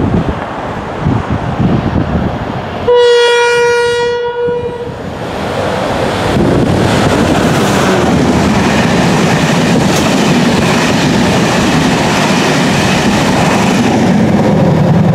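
Wind buffets the microphone, then the NIR 201 Class diesel locomotive hauling the Enterprise sounds one single-note horn blast of about a second and a half, about three seconds in. From about five seconds in, the locomotive and its coaches pass close by with a steady loud running noise of engine and wheels on rail.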